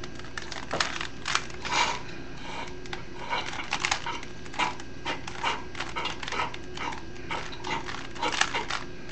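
Rubik's Cube being turned by hand: irregular plastic clacks and clicks as its layers twist, a few each second.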